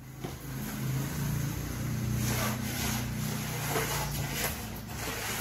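A motor running steadily with a low hum, fading out near the end, with a few light scrapes and knocks on top.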